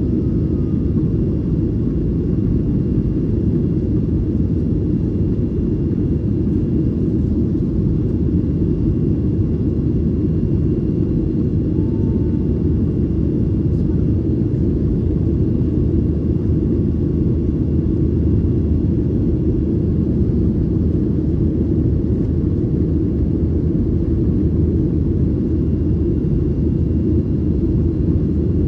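Steady cabin rumble of a Boeing 737-900ER with CFM56 engines, heard from a rear-cabin seat: a deep, even drone of engine and airflow noise with a faint steady high whine.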